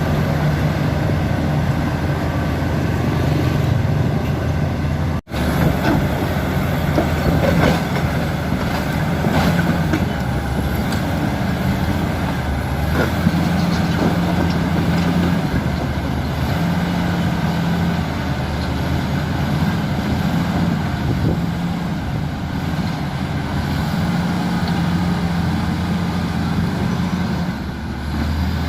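Komatsu D85E-SS bulldozer's diesel engine running steadily, its note swelling and easing as the load changes, with scattered metallic clanks.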